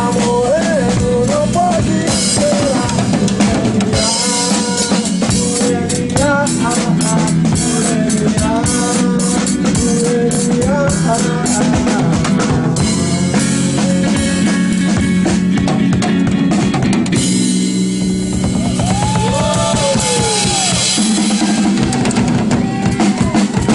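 Music with a drum kit keeping a steady beat under a melodic lead line, briefly thinning out about three quarters of the way through before carrying on.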